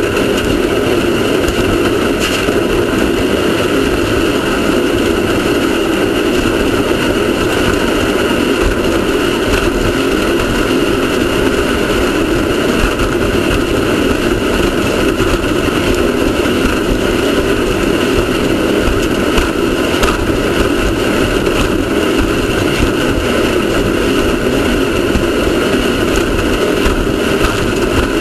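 Off-road race car engine running hard at a steady pace, a loud constant din with the odd sharp knock.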